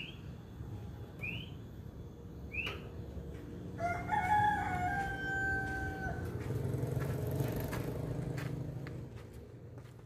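A rooster crows once, a held call of about two seconds, starting about four seconds in. Before it, a bird gives short rising chirps about every second and a quarter. After the crow, a low hum swells and then fades near the end.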